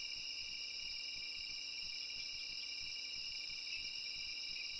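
Night insect chorus: a steady high-pitched shrill drone, unchanging throughout.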